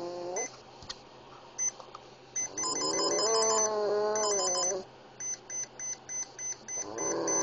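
A Boston Terrier howling along to an electronic ringtone. The howl from before trails off just after the start. A trilling beep tune comes in about two and a half seconds in and the dog joins it with a long wavering howl. The ringtone then carries on alone as short evenly spaced beeps, about three a second, and the howl starts again near the end.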